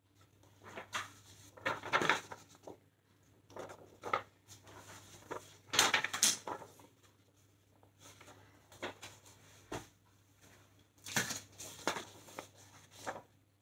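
Sheets of drawing paper being handled and shuffled: irregular rustles and scrapes, the loudest about six seconds in and again near the end.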